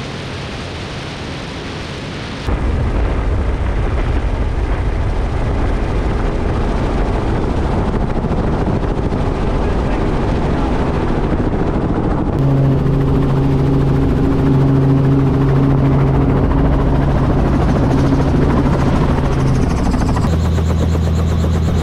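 Robinson R44 Raven II helicopter in flight: a rush of wind at first, then a loud low rumble. From about halfway it becomes the steady hum of its piston engine and rotor, and the tone changes near the end as it comes in to land.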